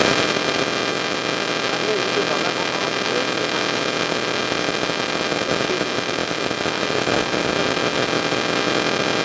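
Steady hiss and electrical hum on the recording, with faint voices murmuring in the background.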